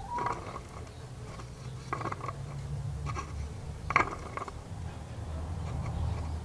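A few light clicks and knocks as a small jig lure with a lead head is handled, set down on a wooden tabletop and picked up again, the loudest knock about four seconds in, over a steady low rumble.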